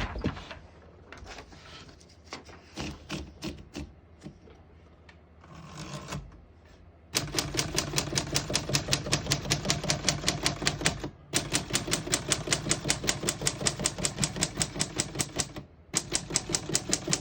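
Typing on a 1935 Corona Standard portable typewriter: after a few quieter clicks and handling noises, the keys strike in fast, even runs of clatter about seven seconds in, broken twice by short pauses.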